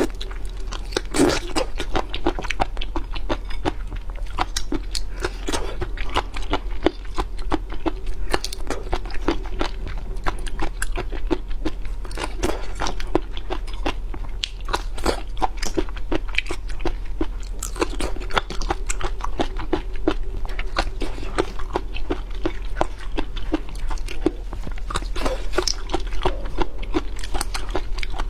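A person eating seafood close to the microphone: continual biting and chewing with many small crunchy, wet clicks, over a low steady hum.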